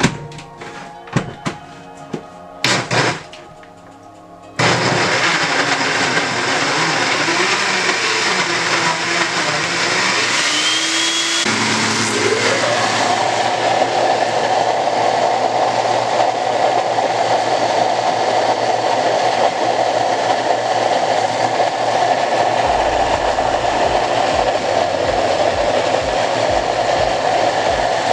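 A few knocks as the countertop blender jar is set on its base, then the blender starts about four and a half seconds in and runs steadily, puréeing breadfruit with water and seasoning into batter. About eleven seconds in its pitch glides up and holds at a higher steady note.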